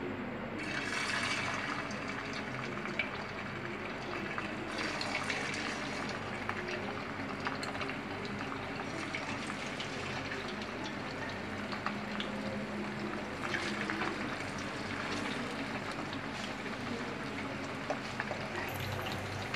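Coated chicken wings frying in hot oil in a pan: a steady sizzle with small crackles, swelling a few times as more pieces are laid into the oil.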